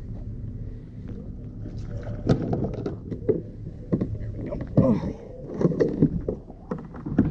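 Plastic kayak hull scraping and knocking on shoreline gravel as a person climbs in and sits down, with irregular clunks and scrapes through the second half.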